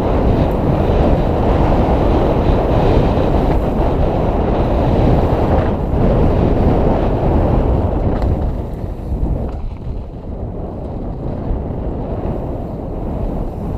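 Wind rushing over the microphone and tyres rolling on a dirt trail as a mountain bike rides downhill. The rush drops somewhat about eight to nine seconds in.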